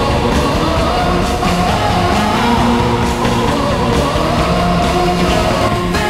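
Loud rock music with singing, played as the goal song.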